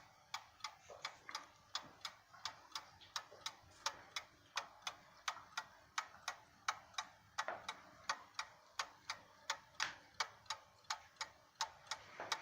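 1920 Ansonia No. 48 Cabinet mantel clock's 8-day movement ticking steadily, about three ticks a second.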